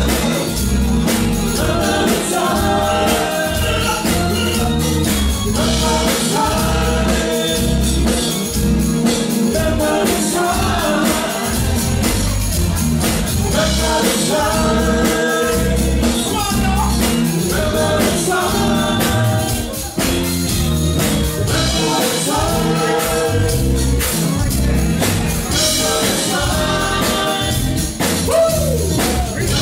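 Live dance band playing an 80s freestyle song: lead vocals over drum kit, bass guitar and keyboards with a steady beat.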